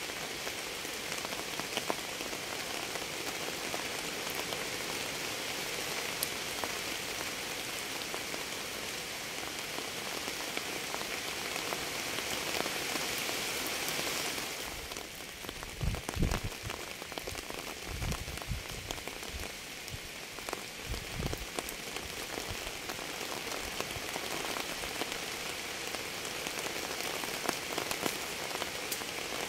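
Steady rain falling on a surface: an even hiss with scattered drop ticks. About halfway through the hiss thins, and a handful of low thuds come over the next six seconds.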